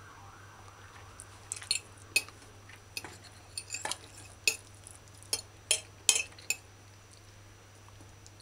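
Metal fork clinking and scraping against a plate while picking up rice and meat: about a dozen short, sharp clicks at an uneven pace that stop about two thirds of the way through.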